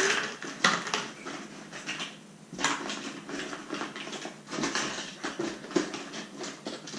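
Hollow plastic Easter eggs clattering and clicking against each other as hands rummage through a pile of them, in quick irregular bursts.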